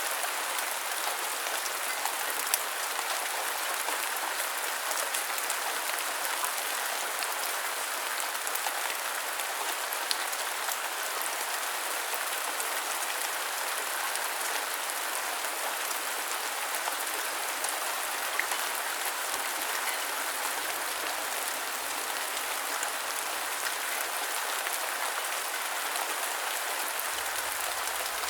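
Steady rain falling, a dense even hiss with many small drop ticks and now and then a sharper, louder drop.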